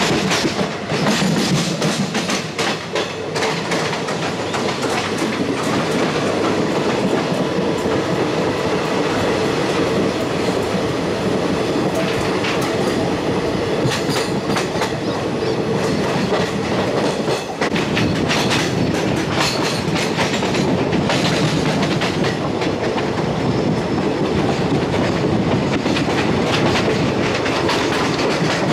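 Passenger train wheels running on the rails, heard from on board the moving train: a steady rumble with repeated clickety-clack over rail joints, and patches of denser clatter several times.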